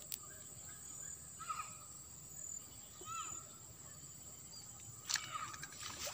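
Rural outdoor ambience: a steady high-pitched insect drone, with a few short, arching bird calls and a sharp click about five seconds in.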